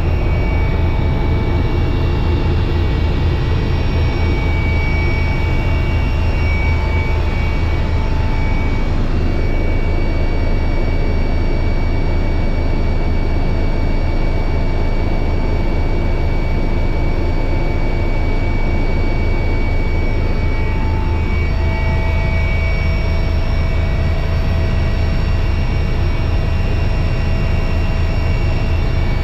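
Helicopter rotor and turbine engine heard from inside the cabin. A steady, fast, low rotor beat runs under a constant high turbine whine.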